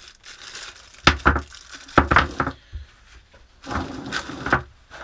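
Knocks and clatter of the helping-hands clamp's parts being handled and set down on a desk, in three short clusters.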